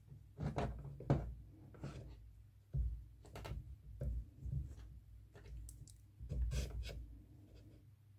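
Metal clicks, knocks and duller clunks from handling the tailstock of an Andrä & Zwingenberger Präzima Z5 watchmaker's lathe as it is set onto the bed and clamped. The knocks are irregular, a few a second, with heavier thumps about three seconds in and again past six seconds.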